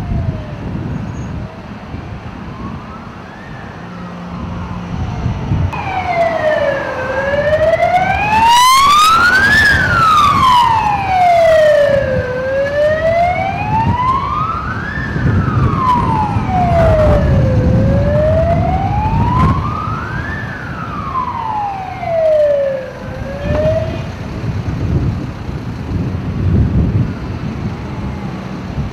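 Fire engine siren wailing in a slow rise and fall, one full cycle about every five seconds. It comes in faintly, grows loud, then fades out near the end, over the rumble of road traffic.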